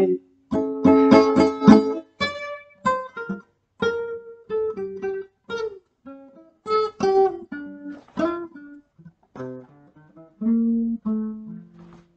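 Classical guitar played solo: a few quick strummed chords about a second in, then single plucked notes and short phrases with gaps between them, thinning out toward the end.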